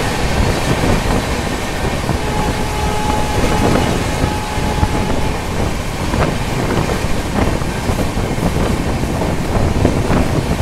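Passenger train running at speed, heard from an open coach door: a steady rumble of wheels on rail with wind buffeting the microphone. A steady whine sounds for a few seconds about two seconds in, and a few sharp wheel clicks come in the second half.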